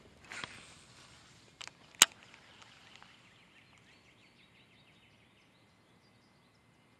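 Quiet outdoor ambience opening with a short rush of noise, then two clicks about a second and a half and two seconds in, the second sharp and by far the loudest. A few faint ticks follow, and a thin steady high tone runs through the second half.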